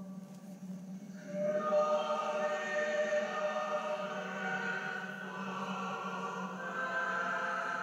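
Choir singing a slow sacred chant over a steady low held note, heard through a television's speaker; the voices swell in about a second in.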